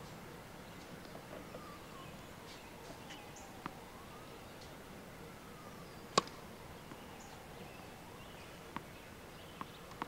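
A tennis serve: a racket strikes the ball once with a sharp crack about six seconds in. A few much fainter taps come before and after it.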